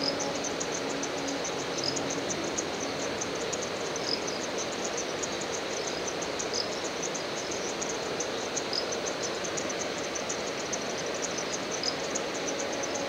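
Insects chirping in a forest at dusk: a fast, even train of high chirps, with a separate short high note about every two seconds, over a steady hiss.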